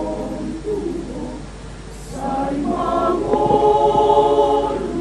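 Women's choir singing sustained chords; the sound drops quieter just before the middle, then swells to its loudest in the second half.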